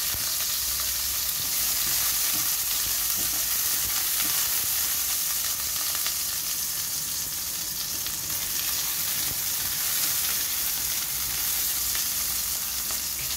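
Small whole red onions sizzling in hot oil in a non-stick wok: a steady frying hiss, with light scrapes and clicks as a spatula stirs them.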